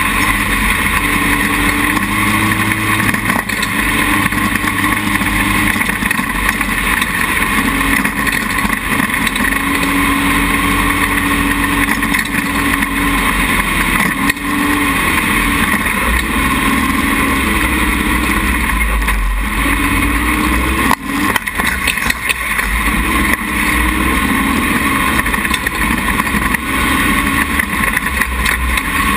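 Dune buggy engine running loud and continuously, heard from a camera mounted on the buggy's frame, its pitch rising and falling with the throttle as it drives over sand. A brief dip with a few knocks about two-thirds of the way through.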